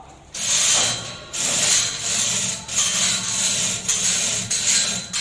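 Manual chain hoist being hauled hand over hand, its chain running through the block. The noise is loud and comes in strokes about once a second, starting a moment in.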